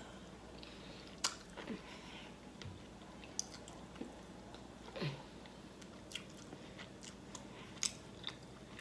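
Close-miked chewing and biting of smoked turkey leg meat. Scattered wet mouth clicks and smacks sound every half second or so.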